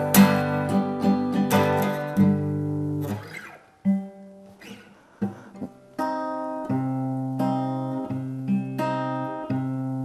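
Acoustic guitar playing chords, with no singing. The playing thins to a few soft notes for a couple of seconds midway, and full chords come back about six seconds in.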